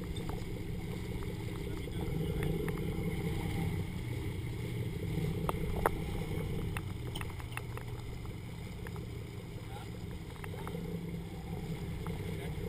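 Steady low rumble of a sportfishing boat's engines and the sea around the hull, with scattered small clicks and knocks on board, one sharper knock about halfway through.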